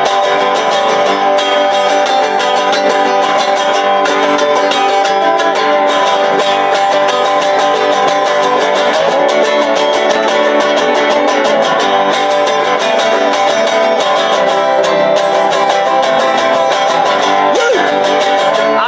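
Instrumental break with no singing: a harmonica in a neck rack plays over a strummed resonator guitar, with a banjo picking quick notes alongside.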